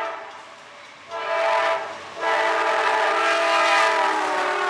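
CSX freight locomotive sounding its chime horn as it approaches and passes: a short blast about a second in, then a long held blast whose pitch drops slightly as the locomotive goes by, over the rumble of the train.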